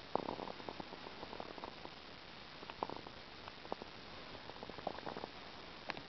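Soft, irregular crackling and clicking handling noise, in three short clusters over a faint hiss, as the old book and the camera are handled.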